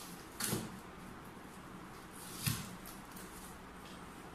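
Gift-wrapping paper rustling as a present is unwrapped by hand, in two short bursts about half a second and two and a half seconds in.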